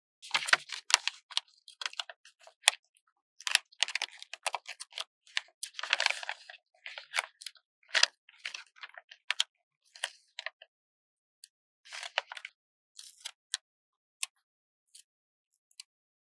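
Stickers being slowly peeled off their backing sheet: crackly paper rustling and sharp little clicks in irregular spurts, with short silent pauses between.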